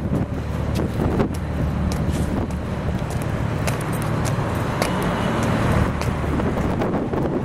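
Boat engine running steadily with a low drone, with wind on the microphone and a few sharp clicks.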